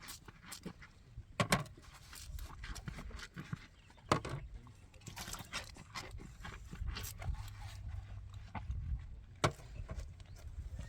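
Irregular sharp knocks and clicks, some loud and single, others in quick little runs, over a low rumble.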